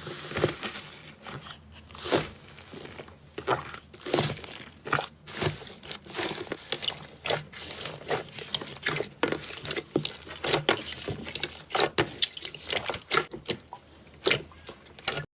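Slime being squeezed and poked by hand, making a dense, irregular run of quick crackles and pops, several a second. It cuts off suddenly at the very end.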